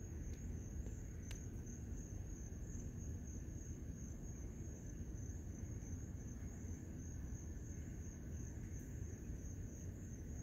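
Night insects trilling steadily at one high pitch, over a low background rumble.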